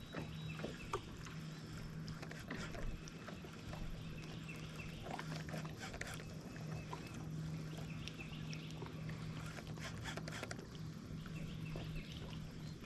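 Electric trolling motor on a bass boat humming steadily, cutting out briefly a couple of times, with scattered small clicks and short chirps over it.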